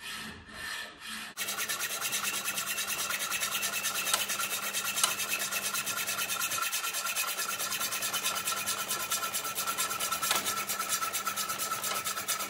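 Hacksaw with a 24 teeth-per-inch blade cutting 3/4-inch low carbon steel pipe held in a pipe vise: even back-and-forth strokes of the blade rasping through the steel, about two a second at first, then, about a second and a half in, much faster and louder as the footage runs at double speed.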